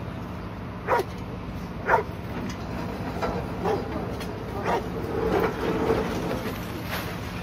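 A search-and-rescue dog barking at the rubble in single barks, roughly one a second, the kind of signal a search dog gives when it has picked up a person's scent. A steady low hum runs underneath.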